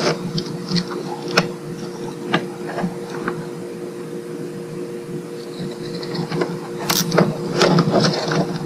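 Nylon cable tie being threaded and pulled tight around a bundle of radio wiring-harness wires: scattered small clicks and rustles, busier near the end, over a steady low hum.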